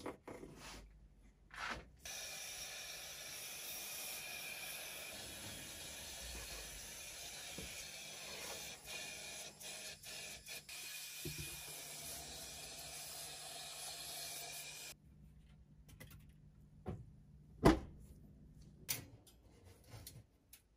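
Powder coating spray gun blowing a cloud of powder with a steady hiss of compressed air for about thirteen seconds, then cutting off suddenly. After it come a few knocks and one sharp, loud metallic clank near the end as the coated parts on a rack are handled.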